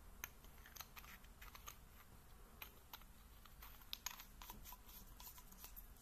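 Faint small clicks and scrapes of a flashlight's metal head being screwed onto its threaded body tube by hand, a few ticks a second as the threads turn.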